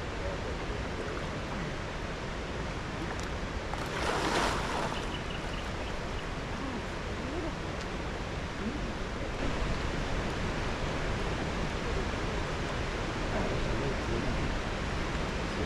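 Steady rush of flowing creek water, with a brief louder surge of noise about four seconds in.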